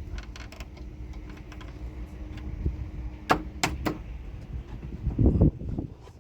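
A few sharp clicks or knocks, three in quick succession about halfway through, then a short run of dull thumps, over a steady low rumble.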